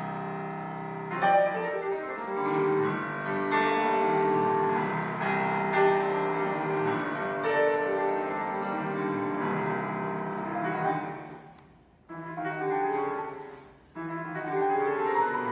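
Grand piano playing a melodic piece with a string ensemble accompanying it. The music drops away briefly twice about three quarters of the way through, then picks up with rising runs of notes.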